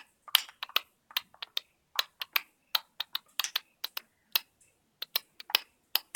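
Sharp clicks and taps, about four a second in an uneven rhythm, from a galah drumming with a stick and clicking along to a clicked rhythm.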